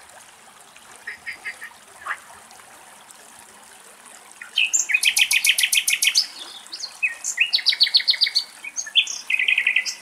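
Common nightingale singing loud phrases of rapidly repeated notes and rising whistles from about halfway through. In the first couple of seconds, frogs give softer short trains of calls.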